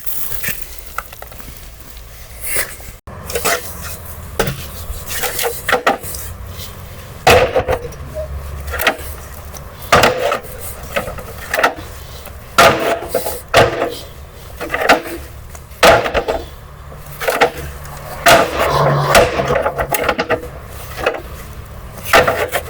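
Machinery in a precast concrete tile factory: a steady low hum under irregular knocks and clattering impacts, several every couple of seconds.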